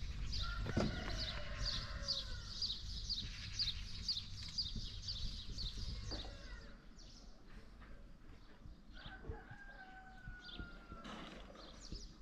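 A rooster crowing twice, once near the start and again, a long slowly falling call, about three-quarters of the way through. Under it a small bird chirps quickly and evenly, two or three times a second, fading out about halfway.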